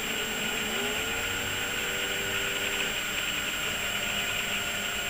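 CNC machine's motors moving an axis: a whine rises in pitch about a second in as the motors speed up, then holds steady over a constant mechanical hiss.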